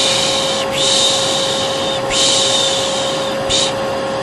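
A vacuum cleaner running steadily with an even hum, while a person's 'shhh' shushing repeats over it about four times, each hiss about a second long with short gaps between. This is the calming shush-and-vacuum noise used to lull babies.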